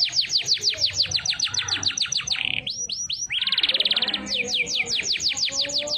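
Domestic canary singing: a fast run of repeated downward-sweeping whistled notes, about seven a second, then a few rising notes and a rapid trill about halfway through, then another run of downward sweeps.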